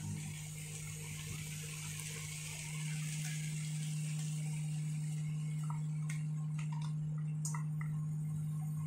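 Chicken and chopped carrot frying in a wok: a steady sizzle with scattered small pops and ticks, over a steady low hum. The sizzle grows a little louder about three seconds in.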